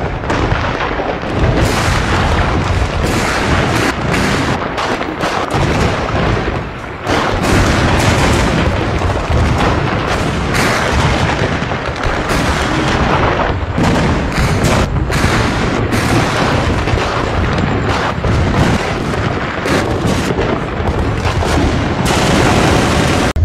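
Heavy, continuous gunfire: many rapid overlapping shots and booms with no let-up, briefly dipping about seven seconds in.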